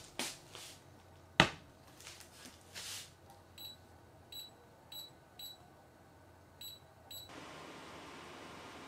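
A stainless steel pot set down on a glass-top hob with one sharp clunk, then six short high beeps from the hob's touch controls as it is switched on and set. A steady hiss from the hob starts just after the last beep as it begins heating.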